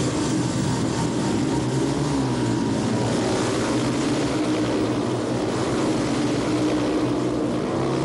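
Speedway motorcycles' single-cylinder engines running together, a rasping drone whose pitch rises and falls as the throttles are worked.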